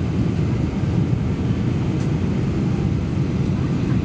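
Steady cabin noise inside a Boeing 747-400 on approach with flaps extended: an even, low rumble of engines and rushing air.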